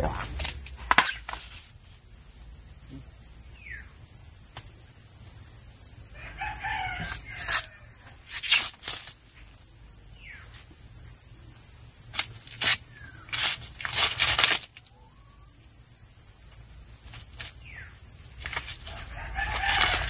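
A rooster crows about six seconds in and again near the end, over a steady high-pitched insect chorus. A few sharp crackles and short bird chirps fall in between.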